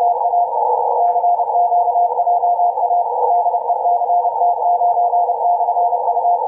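Morse code (CW) signal heard through a Kenwood TS-890 transceiver's narrow 500 Hz filter on the 15 m band: a single steady-pitched beeping tone keyed in dots and dashes over a band of hiss, with a short pause about half a second in. The operator takes it for a Portuguese CT station calling CQ for Japanese stations.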